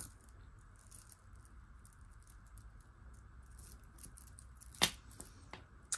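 Small metal clicks and clinks of a silver-tone Brighton bracelet's toggle clasp and links being handled and fastened, with one sharper click near the end.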